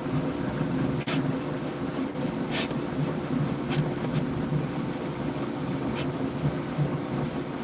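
Bambu Lab H2C 3D printer running mid-print: a steady mechanical hum from its motors and fans, with a few short ticks scattered through.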